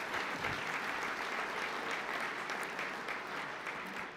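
Audience applauding steadily, starting to die down near the end.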